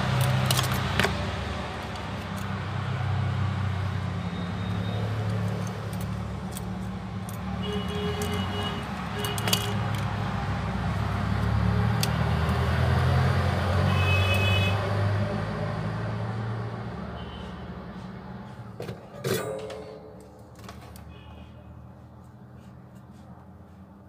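Low rumble of a running motor vehicle that fades away after about eighteen seconds, with scattered small clicks and taps of plastic phone parts being handled.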